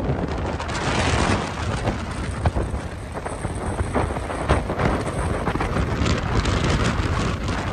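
Strong storm wind buffeting the microphone: a continuous low rumbling rush with several sudden short thumps from gusts.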